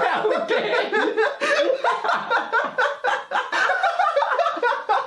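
Two men laughing together.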